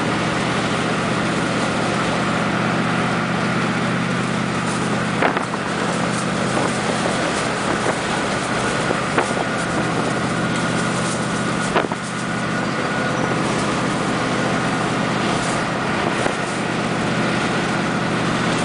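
Steady engine drone and road noise inside a classic car's cabin while cruising on the highway, with a few brief knocks.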